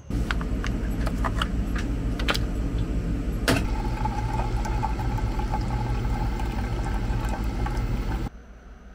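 Single-serve coffee maker brewing: its pump hums steadily while coffee streams into a stainless steel mug, with a few clicks and one sharp click about three and a half seconds in. The machine stops abruptly near the end.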